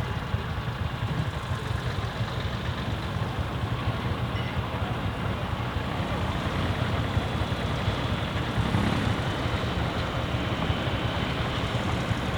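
Air-cooled Deutz diesel tractor engine running steadily.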